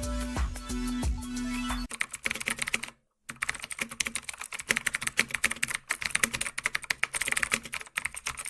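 Background music ends about two seconds in, followed by rapid, dense clicking like typing on a keyboard, with a brief break of silence about three seconds in.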